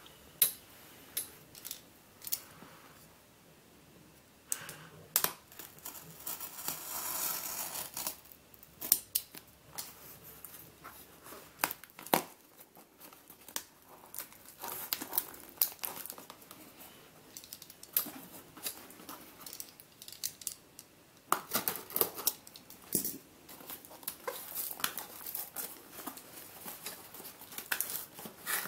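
A cardboard parcel being opened by hand: packing tape is cut and peeled, and the cardboard scrapes and rustles as the flaps are pulled open. Many small clicks and rustles run throughout, with a longer tearing stretch about six to eight seconds in and another about twenty-one seconds in.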